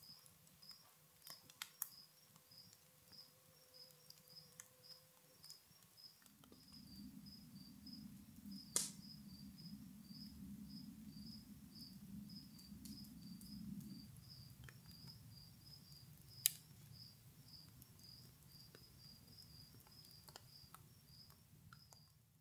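Crickets chirping steadily, about two to three chirps a second, with scattered crackles and two sharp pops from a campfire. A low rumble comes up about six seconds in and eases off after about fourteen seconds.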